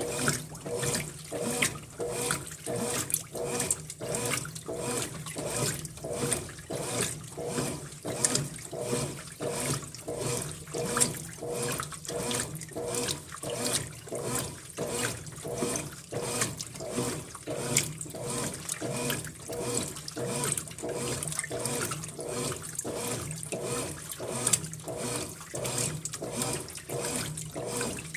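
Brastemp Ative 11 kg top-loading washing machine agitating a load of towels in water during the rinse: rhythmic sloshing about one and a half strokes a second over a steady hum.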